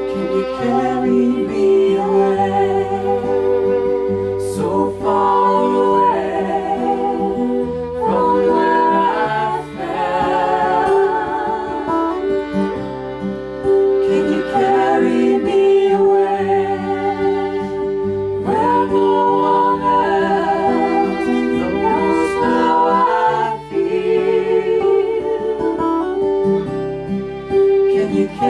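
Folk-rock band playing: a fiddle carrying a melody with vibrato over acoustic guitar and a stepping bass line.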